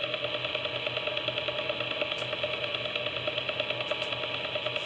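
Steady, fast, rhythmic electronic buzzing on the broadcast audio, with a faint steady tone just under 1 kHz through most of it.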